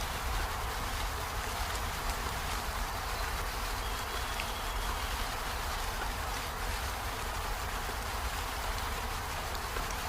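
Steady rain falling on peony flowers and leaves: an even hiss of drops with a low rumble underneath, and a faint thin high note about four seconds in.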